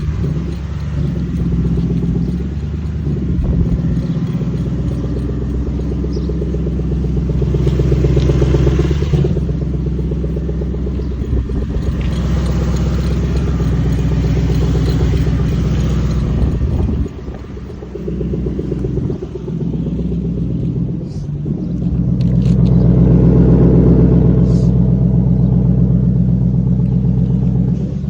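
Lexus LS400's 4.0-litre 1UZ-FE V8 idling, its sound swelling and easing several times. The new owner isn't sure the idle is normal and hears a rattle he can't place.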